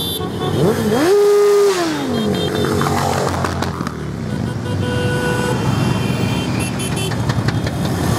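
A stream of motorcycles riding past with their engines running. About a second in, one engine is revved up, held high for about half a second and let fall back. A short single horn toot sounds around five seconds in.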